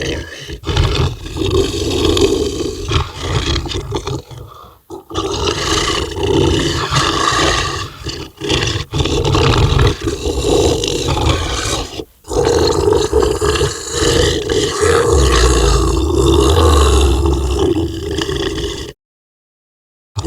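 Zombie dog snarling sound effect: harsh, rough growls and snarls running on with a few short breaks, dropping out to silence about a second before the end.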